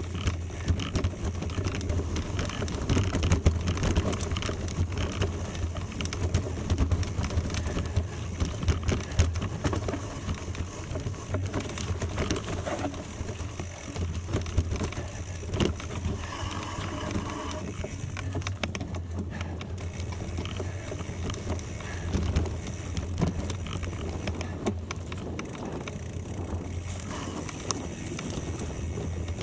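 Gravel bike on the move: steady tyre and road noise with frequent small rattles and clicks, over a low wind rumble on the microphone.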